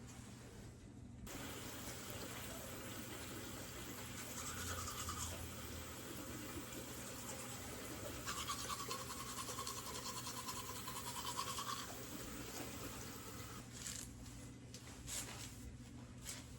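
A small electric appliance's motor running steadily, a hiss with a buzz that starts about a second in and stops near the end, with a higher whine coming in twice.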